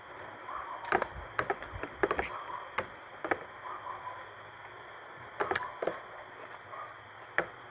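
Close-up eating sounds of people chewing rice and squid by hand: a string of short, wet mouth clicks and lip smacks at irregular intervals over a faint steady background hum.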